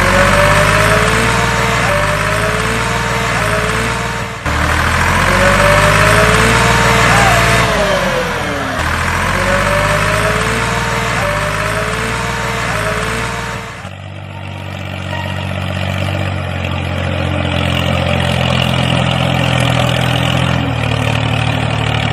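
Vehicle engine running with rising and falling whines. About two-thirds of the way through it switches abruptly to a steadier, quieter idle.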